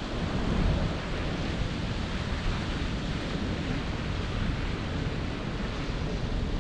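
Steady wind rushing over the microphone of a camera hung from a kite line, a low, even noise without distinct events.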